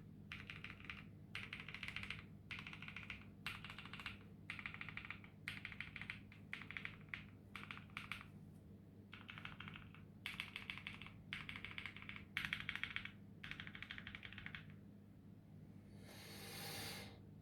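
Custom mechanical keyboard with lubed Boba U4T tactile switches, a PC plate and GMK keycaps, typed on in fast bursts of keystrokes with short pauses between them, with the marbly thock that its PE foam is meant to give. Near the end the typing stops and a swelling hiss rises and fades.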